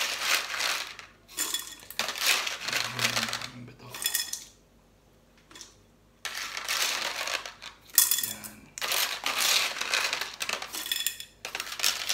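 Small white decorative pebbles clattering and clinking against each other and the glass of a terrarium bowl as they are handled and pushed into place. It comes in several bursts, with a pause of almost two seconds about halfway through.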